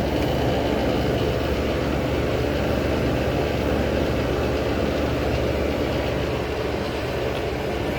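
A 35-year-old General Electric Carry Cool window air conditioner running steadily: an even motor hum with the rush of its fan.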